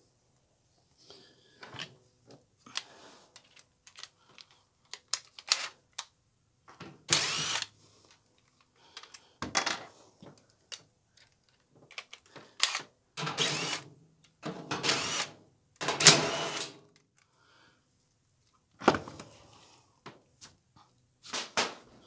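Power drill-driver running in a series of short bursts, its pitch rising and falling within each, as hex screws are backed out of a clothes dryer's sheet-metal base. Small clicks and knocks of handling come between the bursts.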